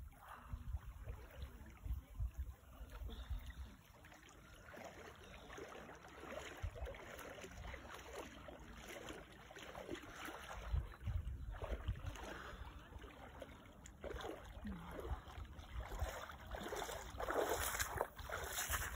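A person wading through shallow lake water toward the shore, with sloshing, splashing steps that grow louder near the end as she reaches the shallows. Wind gusts buffet the microphone now and then.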